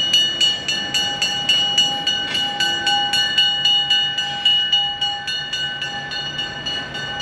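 Railroad grade-crossing warning bell ringing in rapid, even strikes, about three to four a second, with the rumble of a passing train fading as it moves away.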